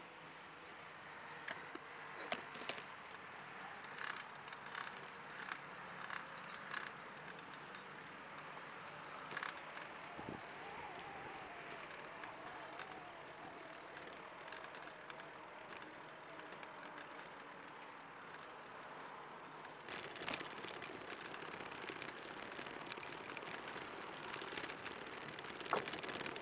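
Steady rolling noise of a tadpole recumbent trike's tyres and drivetrain on a concrete path, with scattered light clicks and ticks in the first few seconds. The rolling noise grows louder and rougher later on, with a sharp knock near the end as the trike reaches a timber boardwalk.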